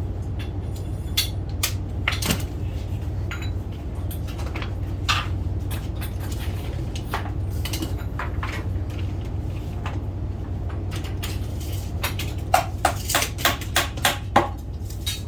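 Scattered light clinks and knocks of hand work on wooden door trim over a steady low hum, ending with a quick run of about eight sharp taps.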